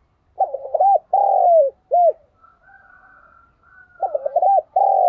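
Spotted dove cooing: two phrases, each a few quick notes, a longer falling note and a short final note. The second phrase starts about four seconds in.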